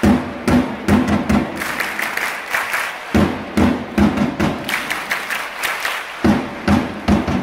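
Football supporters' drums beating a quick rhythm under a crowd chant from the stands, with a short break about three seconds in before the drumming starts again.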